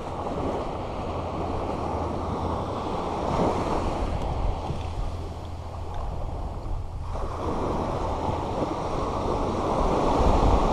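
Small ocean waves breaking and washing up a sandy beach at the water's edge, a steady rush that swells about three seconds in, eases about two-thirds of the way through, then builds again near the end.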